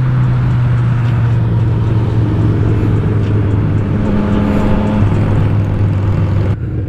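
Motorcycle engine running steadily at cruising speed, with road and wind noise; the sound drops away sharply for a moment near the end.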